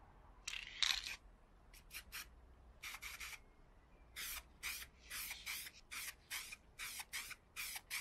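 Aerosol can of black spray paint being sprayed in short hissing bursts, about a dozen of them, coming more often in the second half.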